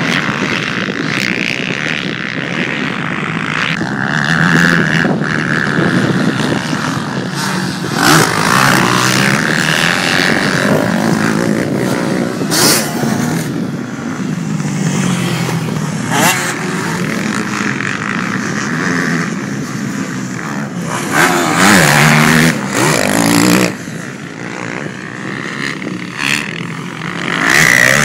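Several motocross dirt bikes riding the track, their engines revving up and falling back again and again as they accelerate, shift and pass. One bike is loudest, accelerating close by, about three quarters of the way through.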